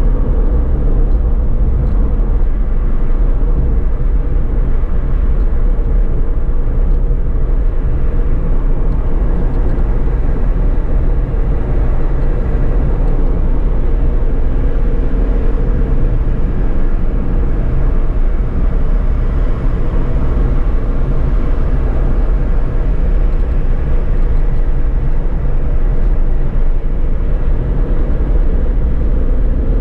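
Suzuki Alto cruising at steady speed, heard from inside the cabin: a constant low rumble of tyres and engine with a steady hum over it.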